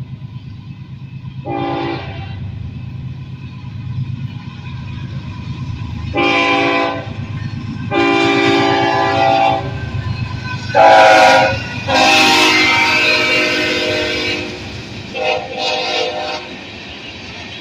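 Norfolk Southern freight train's diesel locomotives approaching, the lead unit sounding its air horn in a series of long and short blasts over the steady low rumble of the engines.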